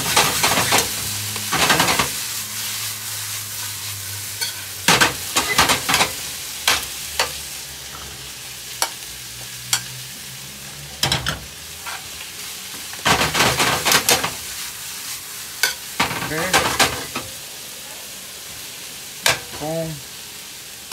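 Chicken pieces and garlic chives sizzling in a hot stainless steel skillet. Clusters of clattering and scraping come every few seconds as the food is stirred and tossed in the pan.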